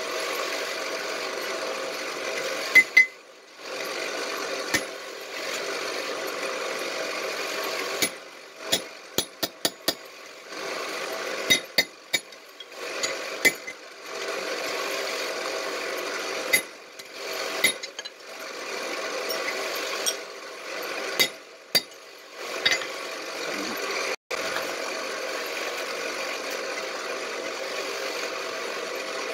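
Hand hammer striking hot steel on an anvil in short groups of sharp blows, with pauses between them. A steady machine hum runs underneath.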